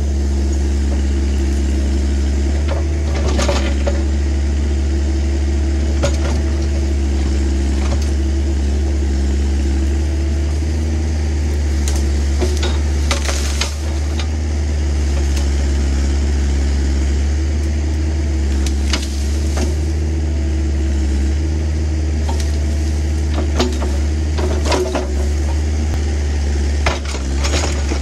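Kubota excavator's diesel engine running steadily under work, with scattered sharp clanks and cracks over it.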